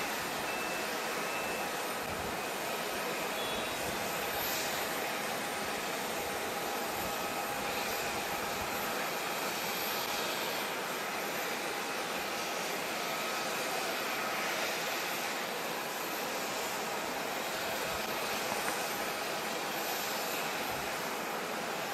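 Jet airliner engines running at low taxi power: a steady rushing hiss with faint, steady whining tones over it.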